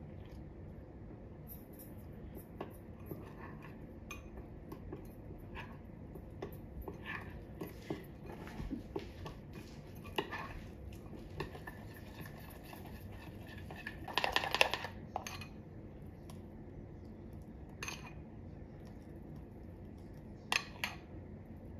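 Metal spoon clinking and scraping against a glass bowl while stirring a thick batter: scattered light clicks, with a loud flurry of rapid clinks and scrapes about two-thirds of the way through.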